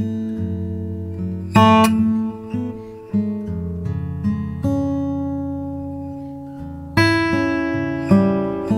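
Background music on acoustic guitar: plucked notes and strummed chords that ring and fade, with strong strums about one and a half seconds in and again near the end.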